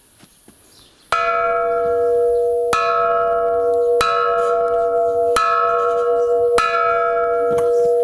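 A hanging metal cylinder used as an alarm bell, struck five times with a metal bar. The strikes come at roughly one-and-a-half-second intervals, and each leaves a long, steady metallic ringing. Five strikes is the signal for an alarm.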